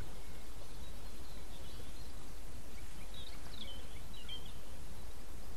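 Outdoor lakeside ambience: a steady low rumble, with small birds giving several short, high chirps from about two to four and a half seconds in.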